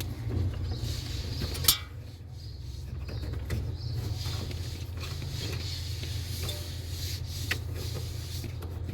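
A sharp click a little under two seconds in, then a few lighter clicks and taps, as a refrigerator's replacement defrost sensor is fitted back in place, over a steady low hum.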